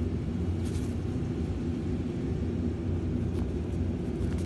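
A steady, low mechanical drone, like an engine running, with a few faint ticks.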